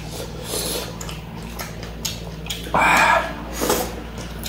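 Mouth sounds of two people eating rice by hand: chewing and lip noises, with one short, louder breathy sound about three seconds in, over a steady low hum.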